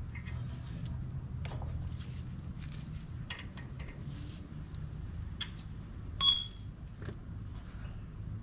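Light clicks and handling noises of metal tools and parts during brake bleeding, with one sharp ringing metallic clink about six seconds in, over a low steady hum.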